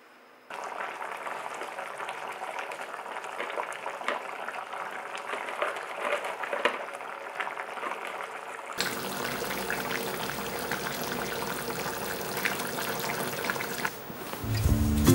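A pot of boeuf bourguignon in red wine and tomato paste simmering, with steady bubbling and small pops; guitar music comes in near the end.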